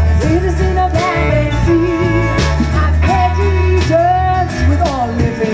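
Live folk-roots band playing an upbeat song: acoustic guitar, electric bass, violin and drums, with a woman singing.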